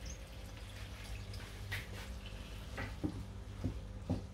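Water poured from a bowl into a pan of fried vegetables, trickling and dripping, over a steady low hum. A few short knocks come in the second half as a wooden spoon stirs.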